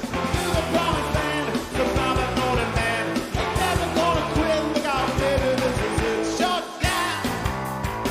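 A rock band playing live at full volume: driving drums, distorted guitars and a shouted, sung lead vocal. Just before 7 s the music briefly drops out, then comes back in with hard, evenly spaced hits.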